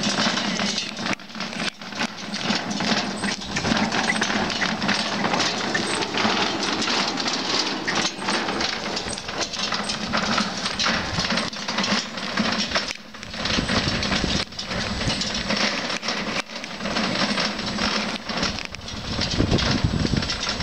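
Bullock cart's wooden wheels and frame rattling and clattering as it rolls along a paved road: a dense, steady clatter full of small knocks, dipping briefly about a third of the way in and again around the middle.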